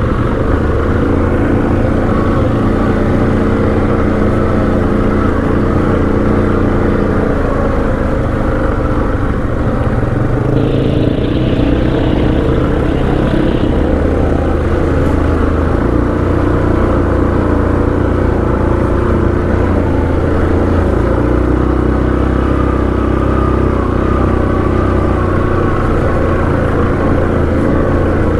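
ATV engine running steadily while riding, its engine speed shifting a few times. A higher-pitched hiss joins in for about three seconds partway through.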